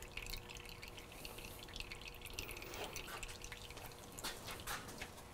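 Old motorcycle fork oil trickling and dripping from the upturned fork leg into a plastic measuring jug already holding oil, faint, with a few light clicks near the end.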